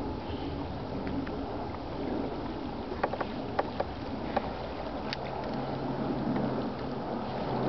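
Gentle splashing and lapping of lake water from a person swimming, with a few small sharp clicks about halfway through.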